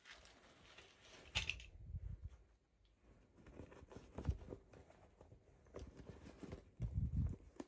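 Hands handling a toy and its packaging: scattered light knocks and soft thumps, with a brief crinkle or snap about a second and a half in.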